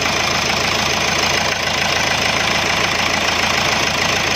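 Hyundai Accent's four-cylinder common-rail diesel engine idling with a steady, fast diesel clatter, heard close up under the open bonnet.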